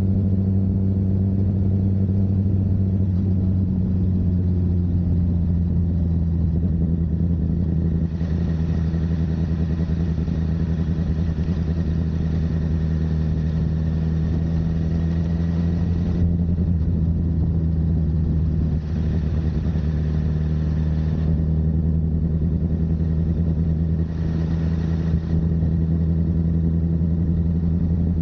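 Honda CBR1000RR's inline-four engine with a Yoshimura exhaust running at a steady, almost unchanging speed while riding. A hiss swells three times over the engine, longest about a third of the way in.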